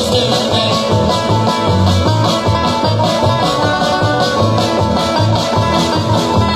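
Live band playing an instrumental passage: guitar over pulsing bass notes, with drums keeping a steady beat.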